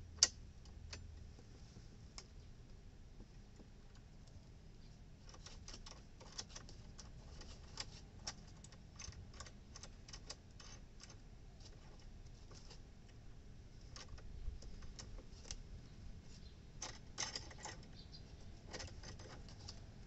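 Small sharp metallic clicks and taps from handling a flaring tool's clamp bar while fitting the end of a copper air-conditioner pipe into it. There is one sharp click just after the start, then clusters of quicker clicks.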